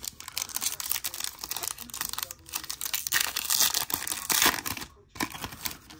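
Foil wrapper of a Topps baseball card pack crinkling and tearing as it is ripped open by hand, a dense crackle that dies down about five seconds in.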